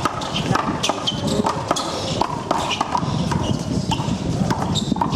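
Irregular sharp smacks of a small rubber handball, struck by open hands and rebounding off the concrete wall and court, mixed with players' quick footsteps scuffing on the concrete.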